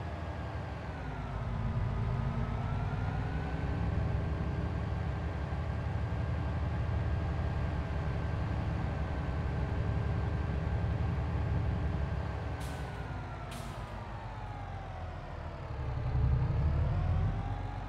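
Truck engine running under changing revs: its pitch dips about a second in, holds steady for about ten seconds, then falls and rises again near the end. Two short clicks about two-thirds of the way through.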